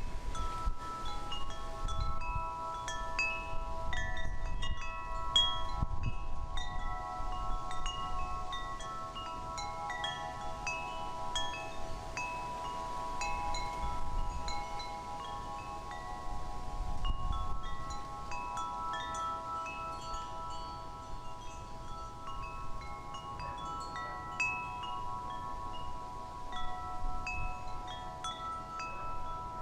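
Wind chimes ringing continuously, many overlapping tubes struck in no set rhythm, with wind gusting against the microphone.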